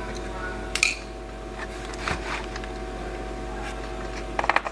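Light clicks and taps from small parts being handled on the workbench, with a quick run of clicks near the end, over a steady electrical hum.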